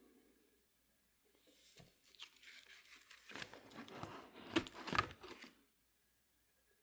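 Pages of a card-collecting notebook crinkling and rustling as they are handled. The crinkling starts about a second in, with two sharper crackles near the end before it stops.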